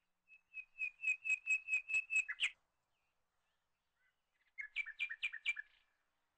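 A bird singing two quick phrases of repeated chirps. The first is about ten notes at around five a second, ending in a downward slur. The second, shorter phrase comes about two seconds later.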